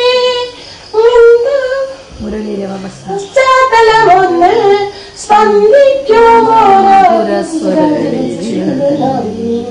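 A woman singing a Malayalam poem in a slow, melodic recitation, with phrases broken by short pauses.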